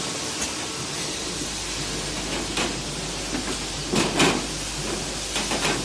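Paint-can filling machine running: a steady mechanical hiss and hum, with a few sharp knocks and clacks, the loudest cluster about four seconds in.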